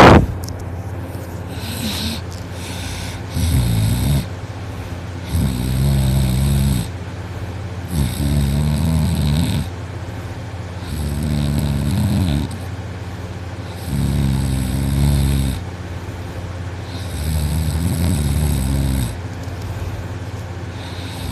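A person in deep sleep snoring heavily, with the throat fully relaxed: a rhythmic run of about seven long, pitched snores, one every two and a half to three seconds, each with a hissing edge. A sharp knock right at the start is the loudest sound.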